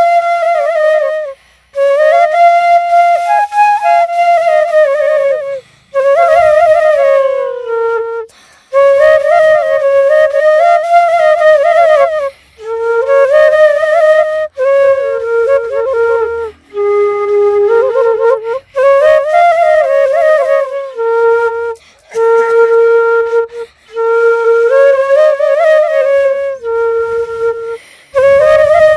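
Solo flute playing a melody in short phrases a few seconds long, with brief breaks between them.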